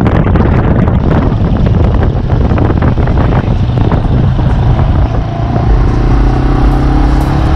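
Motorcycle engine running while riding, with wind noise on the microphone. About six seconds in, an engine's note climbs steadily as it accelerates.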